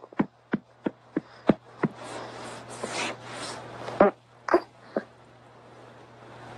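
A hand patting a baby's back in a steady rhythm, about three pats a second, with rustling of clothing and a few heavier pats about four seconds in. A baby's brief little grunts come with them, over a low steady hum.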